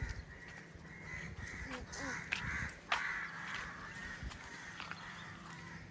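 Crows cawing, a run of repeated harsh calls, with a few sharp clicks in between.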